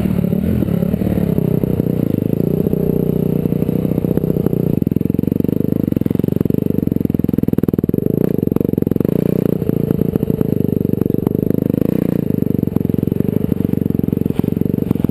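Dirt bike engine running under load while being ridden, its note rising and falling with the throttle, with short clattering knocks over the bumps.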